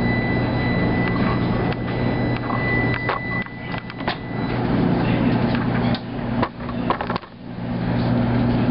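Maytag SoftMount commercial washer running with a steady low hum. A thin high tone holds through roughly the first four seconds, and a string of clicks and knocks sounds in the middle, where the hum twice dips briefly.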